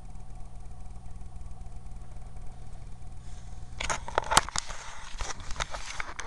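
A steady low hum, then about four seconds in a burst of clicks, knocks and rustling as the webcam is grabbed and moved; the hum cuts out as the handling starts, with one sharp knock standing out.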